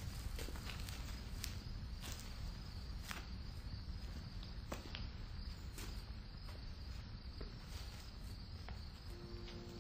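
Faint night ambience of crickets chirping steadily, with scattered soft footsteps about once a second from people walking slowly on stone. Quiet music comes in near the end.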